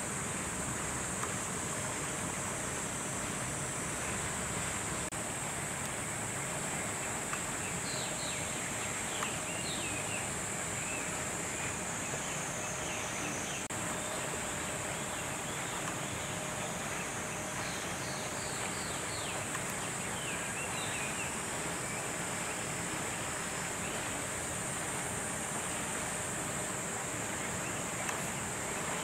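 Steady outdoor ambience: an even rushing noise under a continuous high-pitched hiss, with short high chirping calls in a few brief clusters.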